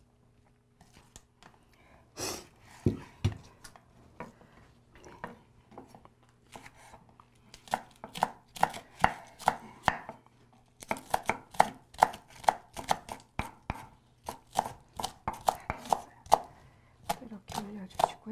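Chef's knife chopping green onion (daepa) on a wooden cutting board: a few scattered cuts at first, then a quick, steady run of chops, about three a second, from about eight seconds in.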